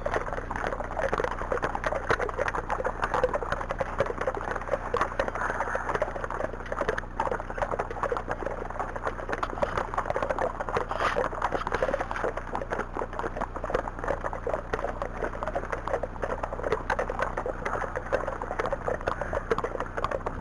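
Wind and blowing snow buffeting the microphone of a rider-worn camera in a blizzard: a dense, steady crackling rush.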